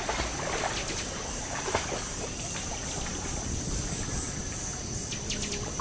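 Rainforest ambience: a steady high-pitched drone of insects over trickling water.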